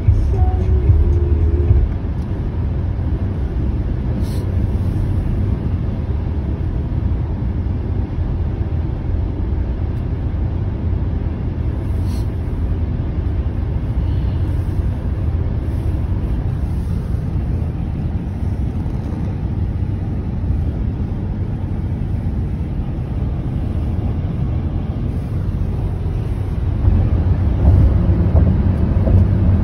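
Steady road noise inside a moving car's cabin at highway speed: a low rumble of tyres and engine that swells briefly at the start and again near the end.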